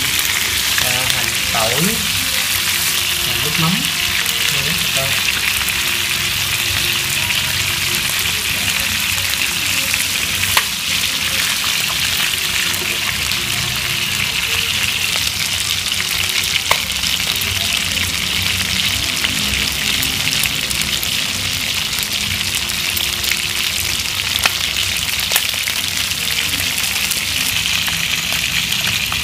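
Pieces of marinated field-rat meat frying in oil in a nonstick pan, a steady sizzle, with a few short clicks as wooden chopsticks turn them.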